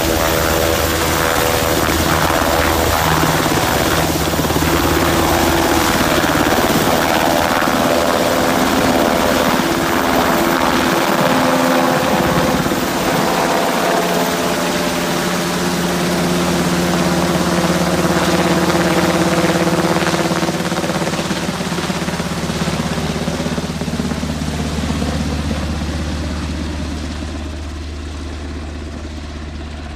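UH-60 Black Hawk helicopter hovering low over water to fill a slung firefighting water bucket, its rotors and twin turbine engines running loud and steady. Over the last ten seconds it flies off and the sound fades.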